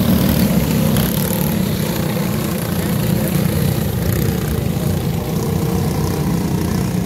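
A pack of racing go-kart engines running hard as the karts pass and go round a dirt-track turn, a loud, steady drone.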